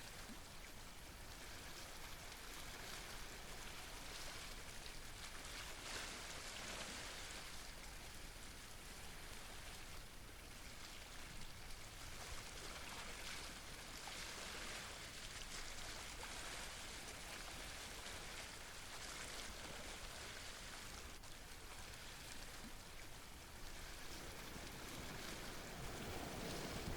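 Faint, steady wash of seawater on shore rocks, swelling and easing slowly.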